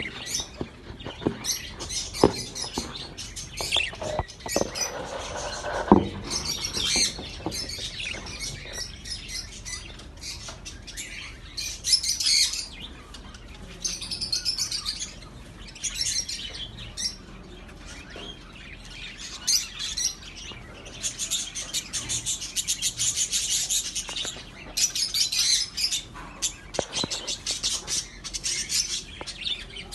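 Budgerigars chirping and chattering continuously in quick high trills, with a few sharp knocks in the first six seconds.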